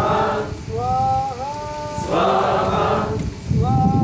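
Call-and-response devotional chanting: a single voice sings a short gliding phrase and a group of voices answers, the exchange repeating about every two seconds.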